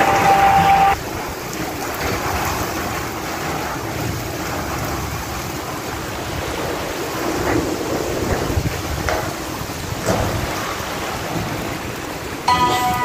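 Heavy monsoon rain pouring steadily, with wind. Background music cuts off about a second in and comes back just before the end.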